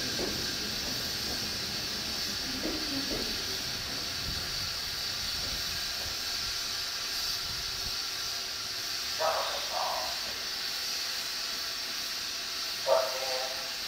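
Steady hiss from a Shinano Railway SR1-series electric train standing at the platform. Two short pitched sounds come about nine seconds in, and a louder short one near the end.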